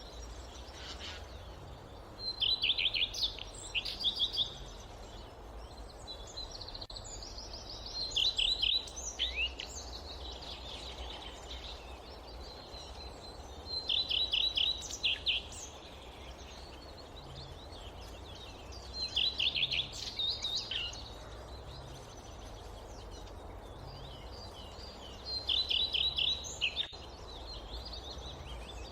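A songbird singing a short phrase of rapid, trilled notes, repeated five times about every six seconds, over a steady low background rush.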